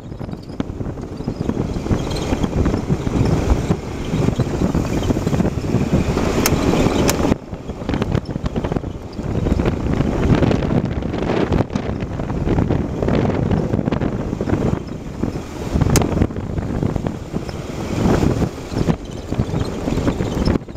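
Car on the move with a steady rumbling road and wind noise, and a few brief sharp clicks or creaks above it.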